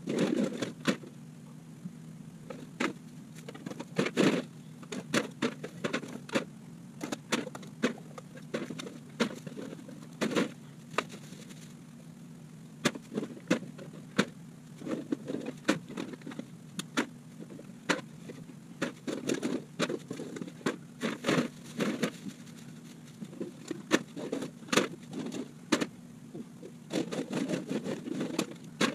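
Aluminium cans and a plastic trash bag being handled: irregular sharp clatters, clicks and crinkles throughout, over a steady low hum.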